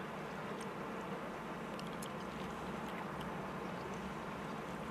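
Steady low hum of machinery running on the work barge, with a few faint clicks.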